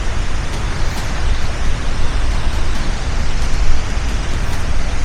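Steady roar of a large waterfall: an even, loud rushing noise with a strong low rumble.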